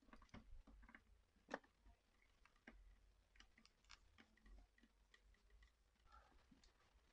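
Near silence with faint, scattered small clicks and taps at irregular intervals, the clearest about a second and a half in.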